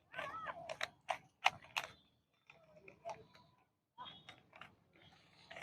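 Plastic clicks and creaks of a Rubik's cube's layers being turned by hand, in quick irregular runs.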